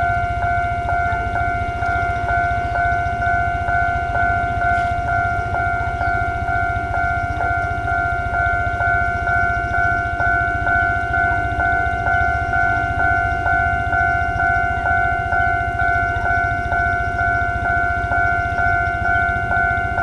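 Railway level-crossing electronic warning bell ringing steadily, a held two-note tone struck in a regular beat of about two to three strikes a second. The tone is off-pitch.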